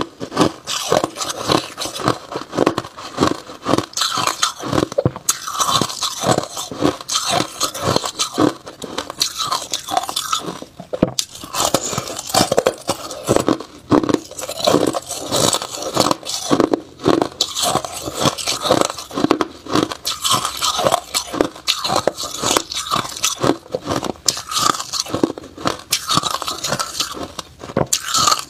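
Hard ice being bitten and chewed close to a clip-on microphone: a rapid, irregular run of sharp crunches and cracks as the ice breaks between the teeth.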